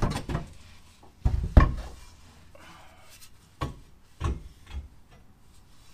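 A driveshaft being handled under a car: several separate knocks and scrapes, the loudest about a second and a half in.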